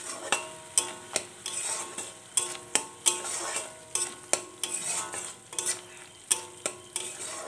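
Silicone spatula stirring and scraping a thick spice paste around a metal kadai, in irregular strokes about two to three a second, over a light sizzle of the paste frying in oil.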